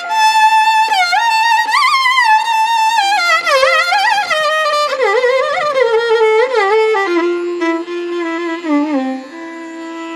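Instrumental background music: a single melody line with many sliding, ornamented notes, settling onto a long held note, quieter, near the end.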